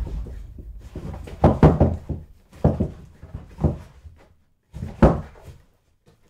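Heavy thuds and knocks in a small room, about six at uneven spacing, following a low rumble that fades away in the first second.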